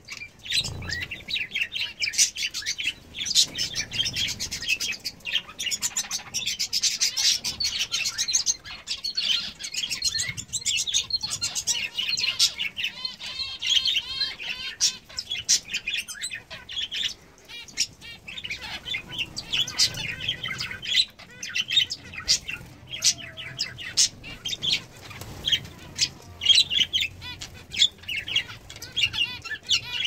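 A flock of small aviary finches, zebra finches and canaries among them, chirping at once: a dense, unbroken chatter of short, high-pitched calls.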